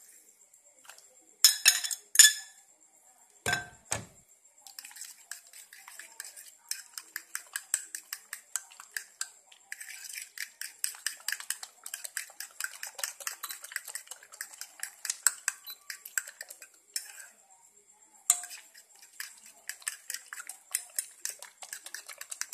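Metal spoon beating raw egg and minced sausage in a ceramic bowl: rapid, rhythmic clinking against the bowl, with a short pause about three-quarters of the way through. A few louder clinks and a dull knock come in the first few seconds.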